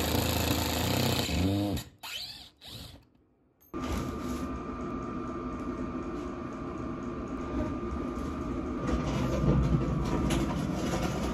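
Ridgid cordless impact driver hammering a screw into wood framing for under two seconds, then winding down as the trigger is let go. After a short break, a steady hum, with wooden boards and framing knocking and clattering as they are lifted and moved near the end.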